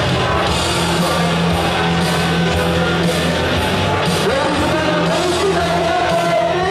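Rock music with a singing voice over a steady beat, played loud.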